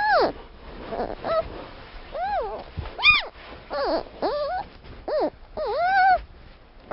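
An animal's short, high cries, about eight of them roughly a second apart, each rising and falling in pitch.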